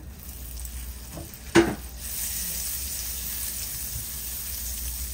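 Butter melting and sizzling in a hot nonstick frying pan, the sizzle settling into a steady hiss about two seconds in. A single sharp knock comes just before it.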